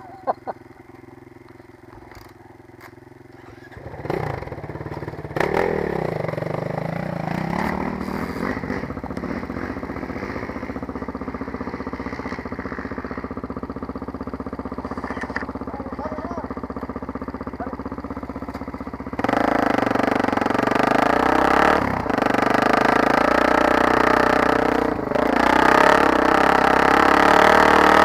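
Off-road dirt bike engine: it starts up about four seconds in, revs and then runs steadily. About nineteen seconds in it gets much louder under throttle as the bike rides off along the dirt trail.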